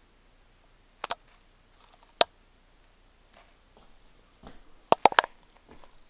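Sharp switching clicks as a Hunter Studio Series ceiling fan is turned on by remote control: a close pair about a second in, one louder click a second later, and a quick run of three or four near the end. The fan itself is barely heard.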